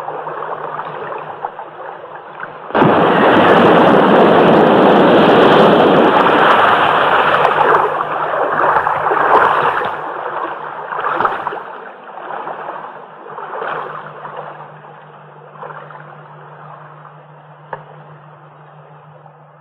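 An explosion in the lake: a sudden blast about three seconds in, followed by several seconds of heavy rushing spray that slowly fades away in smaller surges.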